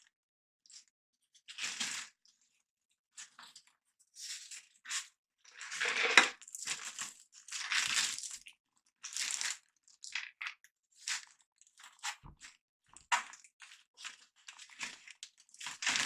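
Packaging being handled: short bursts of crinkling, rustling and tearing, about a dozen of them with pauses between.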